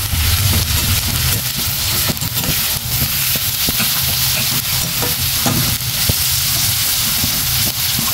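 Sliced onions and green chillies sizzling in hot oil in a stainless steel pan while being sautéed, stirred with a metal slotted spatula that clicks and scrapes against the pan. A steady low hum runs underneath.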